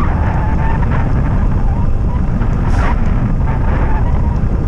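Wind rushing over the microphone of a bicycle on the move, a steady loud low rumble, with a faint thin whine rising out of it twice.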